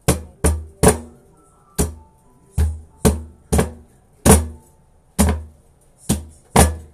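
Cleaver chopping through an ear of corn on a thick wooden chopping board. About eleven chops come at an uneven pace, roughly one every half second to second, each a sharp knock with a low thump.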